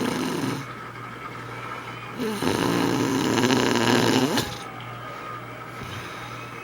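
An elderly woman snoring loudly. One snore ends about half a second in, and a second, longer snore with a fluttering rattle follows from about two to four and a half seconds.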